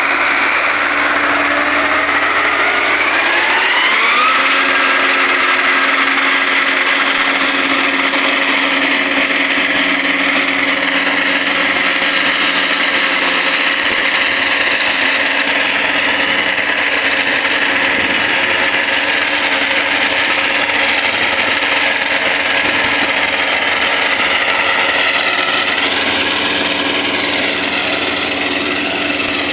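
Motorised trimmer running and cutting down raspberry canes. It revs up over the first few seconds, then holds a steady high speed.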